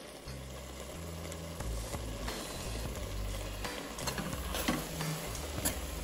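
A spoon stirring and scraping thick grated-carrot halwa in a metal pan as it fries with sugar, with a few sharp clicks of the spoon against the pan in the second half.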